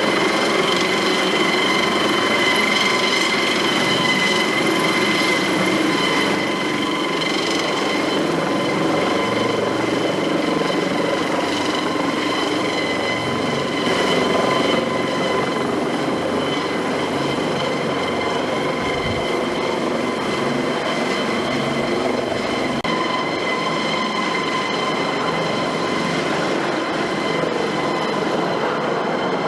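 Eurocopter AS365 Dauphin helicopter running, its twin Arriel turboshaft engines giving a steady high whine of several even tones over a broad rushing rumble.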